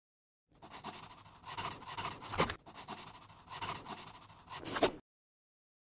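Pen scratching on paper in two scribbled passes of about two seconds each, each ending in a sharper final stroke.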